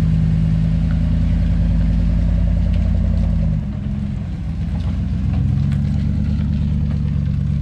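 A motor engine running steadily. Its note drops about three and a half seconds in, then settles again.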